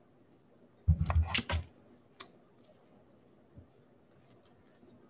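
Hands handling a baseball card and its foil pack wrapper: a short rustling scrape about a second in, then a few faint soft clicks and rustles.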